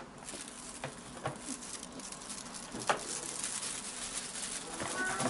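Eight-month-old British Shorthair cat chattering: a rapid run of clicking jaw-chatter broken by a few short chirps, the loudest about three seconds in. A brief pitched chirp comes near the end.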